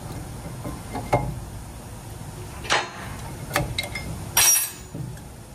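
Metal clinks and knocks from a Ram ProMaster 2500's rear disc brake caliper and pads being handled during removal: about five sharp strikes, the loudest a ringing clank about four and a half seconds in.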